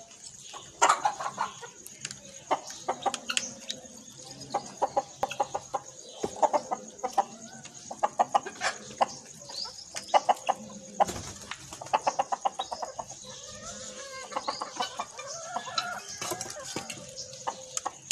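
Chickens clucking in repeated runs of quick clucks throughout.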